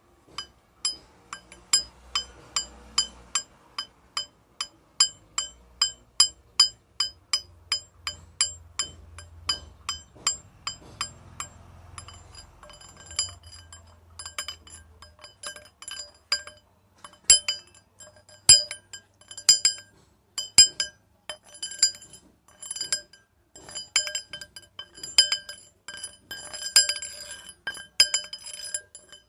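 Metal rods struck repeatedly, each strike a bright clink that rings on with several high, bell-like tones. For the first dozen seconds the strikes come evenly at about two a second; after that they come faster and unevenly, overlapping, with a few louder hits.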